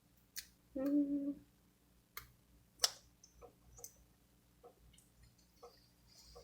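Small plastic cap being worked off an extract bottle: a few sharp clicks, then lighter irregular ticks. A short hummed "mm" comes about a second in.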